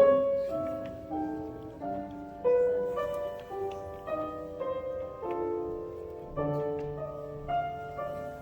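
Slow keyboard music: chords and melody notes struck one after another, each fading after it is struck.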